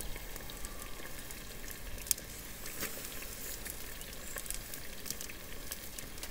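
Two T-bone steaks searing on a gas grill's hot grate with both burners at full heat: steady sizzling with scattered crackles and one sharper pop about two seconds in.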